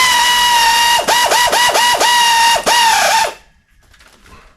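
Power ratchet running at speed, a steady high whine with hiss that dips in pitch about eight times as it bites, spinning in the bolts between the engine's bell housing and the transmission. It stops shortly after three seconds.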